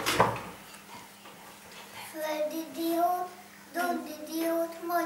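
Young kindergarten children singing a song together, holding long steady notes from about two seconds in. A short knock comes right at the start.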